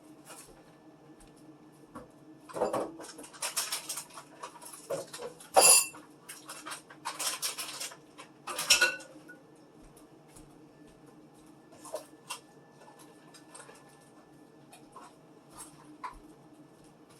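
Food containers and jars being handled and set down while a fridge is emptied: clinks, clatter and rustling, busiest in the first half, with one sharp knock about halfway through, then only a few scattered clicks.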